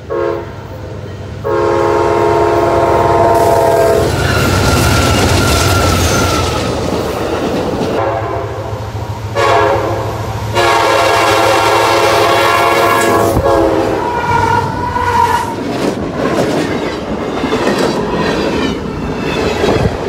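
Freight train diesel locomotive horn sounding several chord blasts, two of them long, over the steady rumble of the passing train. Later the freight cars roll by with their wheels clacking over the rail joints.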